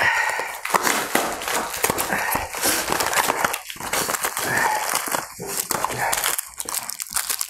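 Plastic biscuit wrappers crinkling and rustling as they are handled and torn open, a dense continuous crackle.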